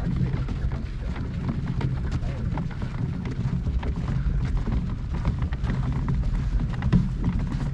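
Hand-pushed dock cart rolling over snow-dusted dock boards: a steady low rumble from the wheels with scattered small knocks and clatters.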